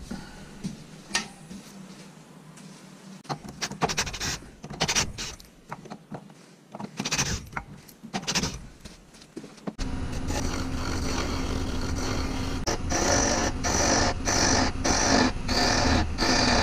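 Clicks and knocks of metal lathe-fixture parts being fitted around a burl-and-resin blank, with short runs of a cordless drill driving the fixture's screws. About ten seconds in, this gives way suddenly to a wood lathe running and a gouge cutting a spinning wooden blank: a steady rasping cut over a low rumble, pulsing about twice a second near the end.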